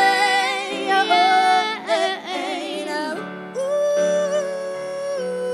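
Female voices singing a wordless run with wide vibrato, then holding one long note that steps down near the end, over piano accompaniment.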